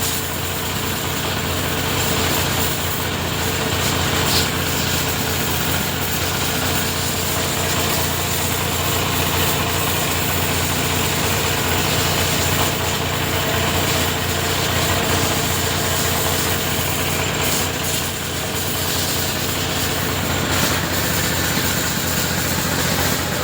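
Pressure washer of the kind used for washing motorcycles, running steadily with the hiss of its water jet spraying.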